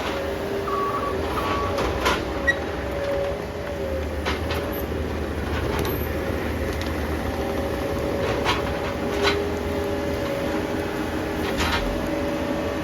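Heavy machinery running steadily with a low rumble and a steady whine, with scattered sharp metal clanks and knocks from the equipment working.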